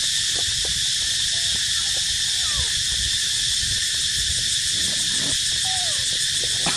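Insects droning, a continuous high-pitched buzz, with a few faint short calls that slide down in pitch scattered through it.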